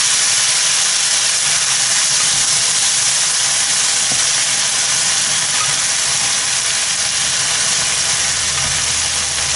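Salsa verde sizzling steadily in a frying pan with browned bacon, corn and onion, stirred with a plastic spatula.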